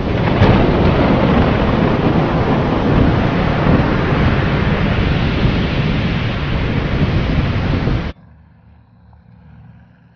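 Sound effect of a stormy sea: a loud, dense rush of waves and wind that cuts off suddenly about eight seconds in, leaving only faint outdoor background.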